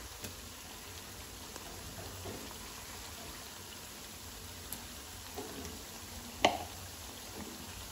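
Chopped onions and green chillies frying gently in oil in a kadai, a faint steady sizzle, as a ground paste is spooned in with a plastic spoon. A single sharp tap, the loudest sound, about six and a half seconds in.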